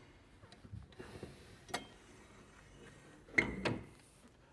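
Rear engine cover of a Kubota mini excavator being lowered and shut: a few light clicks, a knock, then two clunks close together near the end.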